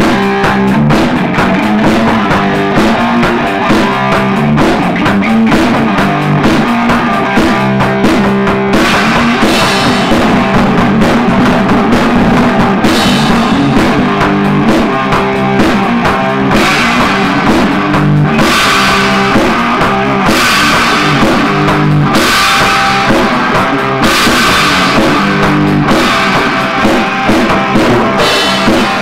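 Loud rock music with a drum kit and guitar, steady throughout; cymbals wash in about nine seconds in and keep coming back in blocks.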